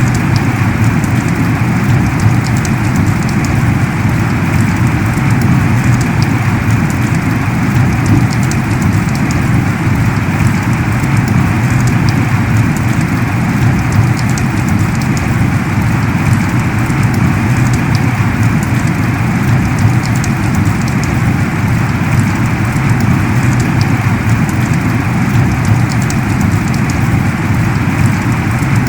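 Heavy rain falling steadily, a dense, even hiss of downpour with countless small drop ticks.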